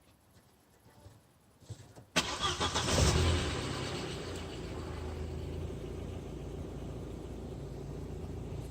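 Audi A4 B5's 1.8T turbocharged four-cylinder engine starting: it catches about two seconds in, flares up briefly, then settles into a steady idle.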